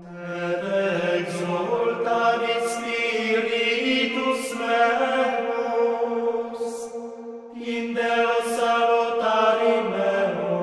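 Slow sung chant as background music: voices hold long notes that move by step, with the hiss of sung consonants now and then. A new phrase begins about three-quarters of the way through.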